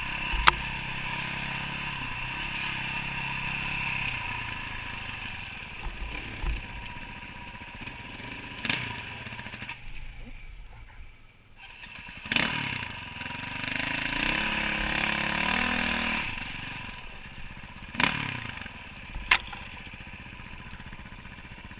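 Dirt bike engine running on a trail ride, rising and falling with the throttle; it dies down briefly near the middle, then revs up again. Several sharp knocks stand out, one just after the start and two close together near the end.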